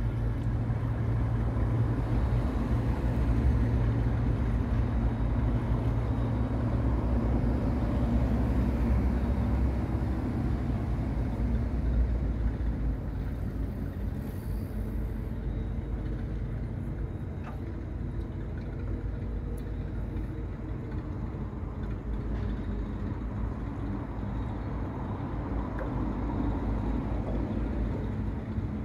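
Boat engine running steadily, a low hum with a deep drone, louder for the first dozen seconds and then easing off a little.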